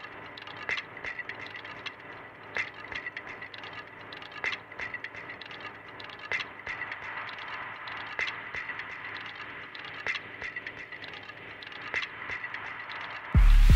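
Sparse breakdown of live hardware techno from an analog drum machine and synthesizer: quiet ticking percussion with a short high blip repeating about every two seconds and no kick drum. Near the end the kick drum and full beat drop back in loudly.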